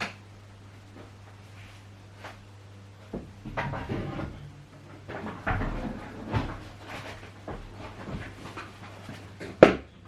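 Vacuum cleaner parts being handled: rustling and light knocks at irregular intervals, with one sharp click near the end, over a low steady hum. The vacuum motor is not running.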